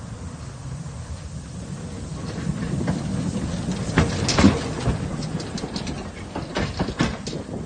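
Small narrow-gauge steam locomotive running past at close range, a low rumble that grows louder as it goes by about four seconds in and then eases, with clusters of sharp clicks.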